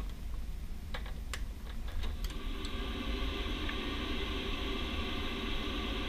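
Baxi boiler being powered on: a few sharp clicks, then about two seconds in a steady whirring hum with a faint whine starts up and keeps running.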